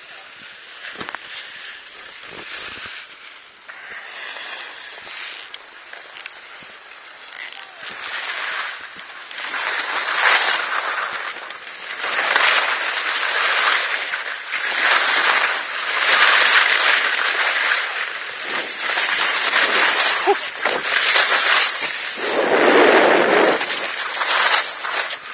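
Skis scraping and carving over snow through a series of turns: a hiss that swells about every two seconds, growing louder from about a third of the way in, with one heavier scrape near the end.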